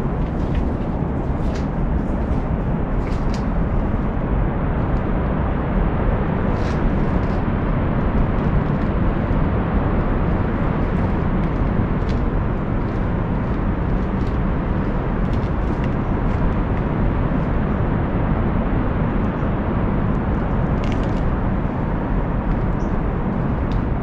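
Steady wind rumble on an action camera's microphone, a loud, even low noise without break, with a few faint ticks on top.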